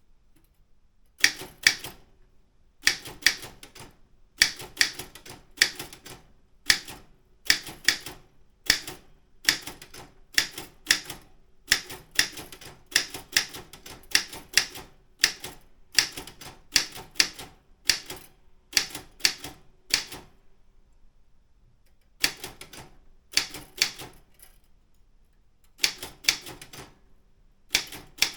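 Daro Optima M16 manual typewriter being typed on: irregular runs of sharp key strikes, broken by short pauses about twenty seconds in and again a little later.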